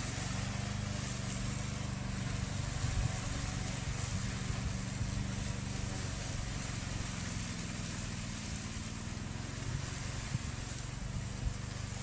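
Black Shark 800 remote-control slope mower's 764 cc two-cylinder petrol engine running as the machine cuts into tall reeds: a steady, low drone.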